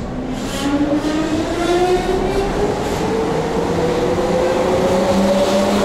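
Keihan electric train pulling away and accelerating. Its traction motors give a whine that rises steadily in pitch and grows louder, over the rumble of the wheels.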